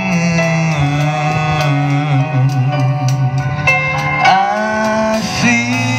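Live jazz band playing an instrumental passage: a violin carries the melody with vibrato and a rising slide about four seconds in, over bass guitar, keyboard and drums.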